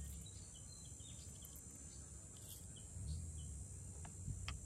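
Outdoor beach ambience: a steady high-pitched insect drone with short bird chirps over it, and low rumbles that swell and fade about three seconds in. A few sharp clicks near the end.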